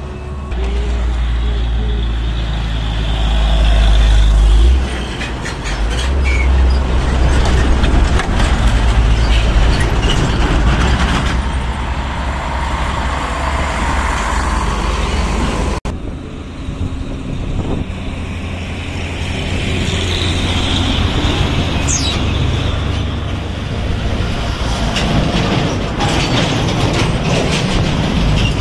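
Heavy diesel trucks climbing a bridge incline close by, their engines pulling hard under load, with a steady rumble and tyre noise from the passing traffic.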